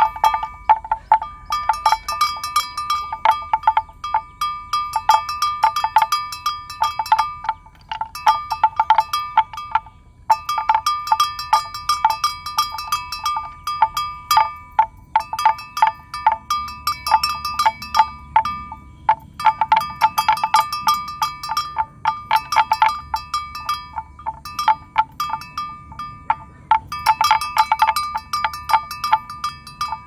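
A metal livestock bell on a grazing water buffalo clanks in irregular runs of quick strikes, separated by short pauses. It rings at the same bright pitch each time.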